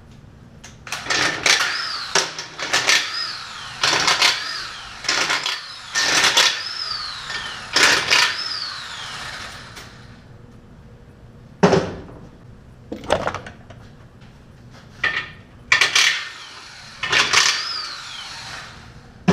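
Impact wrench zipping bolts off the block's pressure-test plates in a dozen or so short bursts, several ending in a falling whine as the tool spins down, with a sharp knock about two-thirds of the way through.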